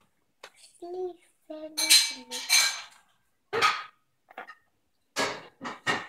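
A toddler making wordless vocal sounds: a couple of short pitched calls, then several sharp, breathy bursts, the last three in quick succession near the end.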